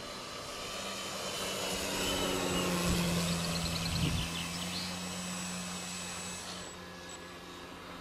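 Electric motor and propeller of a Seagull GeeBee Model Z radio-controlled model plane flying past, its whine growing louder to a peak about three to four seconds in, then fading as it pulls away.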